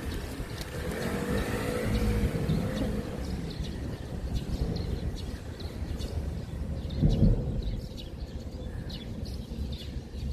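Street traffic noise: a steady low rumble of passing vehicles, with a louder swell about seven seconds in.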